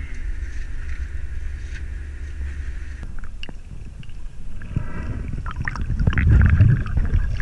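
A low steady rumble on an open boat, then from about three seconds in the muffled sound of a camera underwater: water gurgling and bubbling with scattered clicks, and a louder low rumble near the end.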